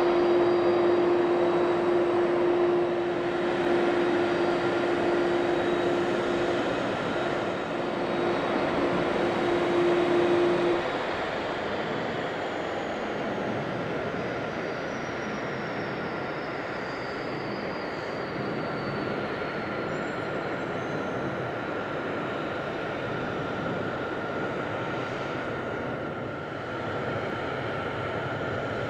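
Boeing 767-300ER jet engines running at taxi idle with a steady roar and a strong low hum; the hum cuts off about eleven seconds in and the level drops, then a thin high whine slowly falls in pitch as the engines wind down after arrival at the gate.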